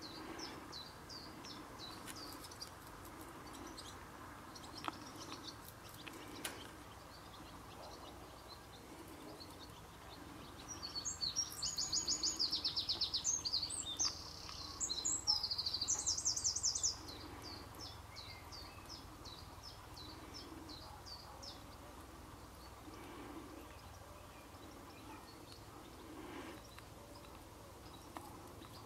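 Outdoor birdsong: faint scattered chirps, with one loud song of rapid repeated high notes starting about a third of the way in and lasting around six seconds, with a brief break in the middle.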